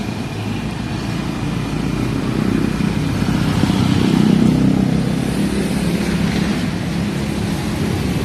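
Motor vehicle engine running with a steady low rumble that swells a little about four seconds in.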